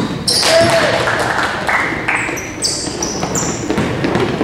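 Sneakers squeaking on a gym court several times in quick succession, over steady echoing crowd noise in the hall.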